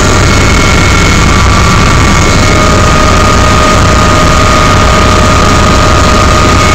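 Helicopter turbine engine and rotor running loud and steady, a constant high turbine whine over a heavy low rumble.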